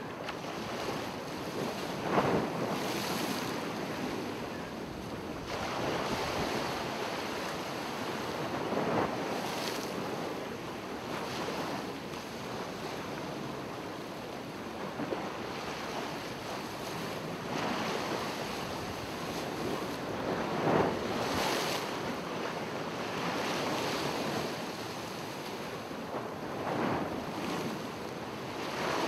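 Ocean surf washing onto the beach: a steady hiss of water that swells and falls back every few seconds as waves come in.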